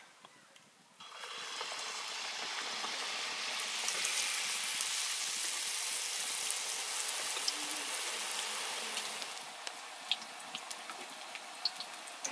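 Sel roti deep-frying in hot oil: a dense sizzle that starts suddenly about a second in, stays strong, then eases near the end with scattered crackles.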